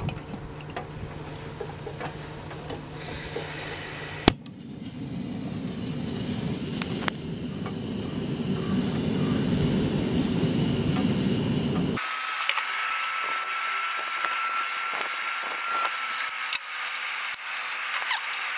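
Portable gas-canister stove burning under a steel pot of water: a steady low rushing that grows louder, with a sharp click about four seconds in. About twelve seconds in it cuts to live red swamp crayfish scrabbling in a plastic tub, a run of light clicks and scratches on the plastic.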